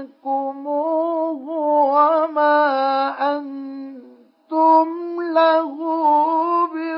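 A male Quran reciter chanting in the melodic mujawwad style, with long held and ornamented notes. There is a short break for breath about four seconds in.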